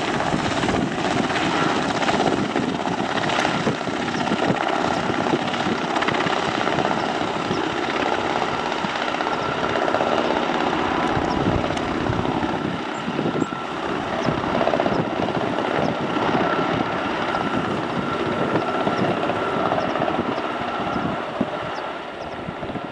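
Sikorsky S-92 twin-turboshaft helicopter flying low on approach, its rotor noise running steadily with a steady high whine over it.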